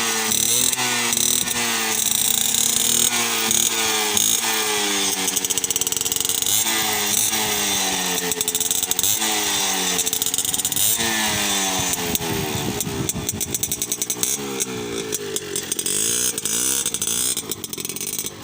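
Yamaha Alfa two-stroke motorcycle engine being revved over and over while it is tuned, each blip of the throttle rising in pitch and falling back, the revs coming quicker in the last few seconds.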